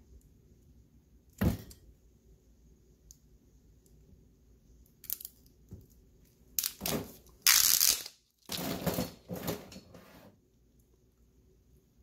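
Pliers working a short length of insulated copper wire, pulling at the plastic insulation: one sharp click about a second and a half in, then several short, noisy sounds of the insulation being worked in the second half, the loudest about two-thirds of the way through.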